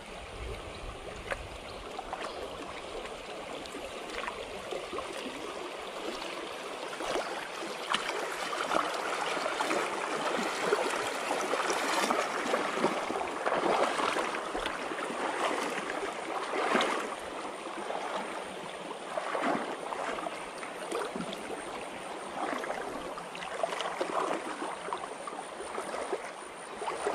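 Shallow river running over stones, a steady rushing and rippling of water that swells a little in the middle and eases again.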